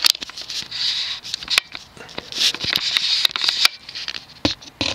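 Close scraping and rubbing with many scattered clicks, coming and going in short patches, typical of something being handled right at the microphone.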